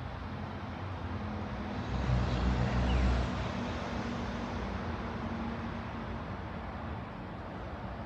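Road traffic going by: a passing vehicle's rumble and tyre noise swells to its loudest about two to three seconds in, then eases into steady traffic noise.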